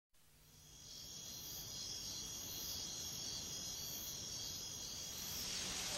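Insects chirping in a steady, high, shrill chorus that fades in over the first second.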